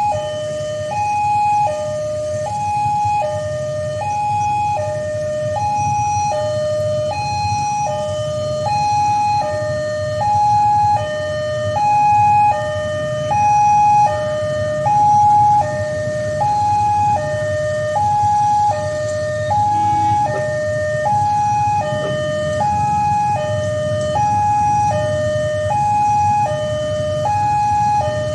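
Indonesian railway level-crossing alarm sounding: an electronic two-tone signal alternating between a higher and a lower note about every half second, warning that a train is approaching. A steady low rumble runs underneath.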